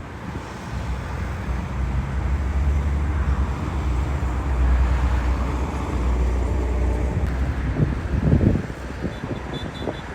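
Jet airliner's engines, a low rumble that swells over several seconds and eases off as the aircraft passes. Wind buffets the microphone in gusts near the end.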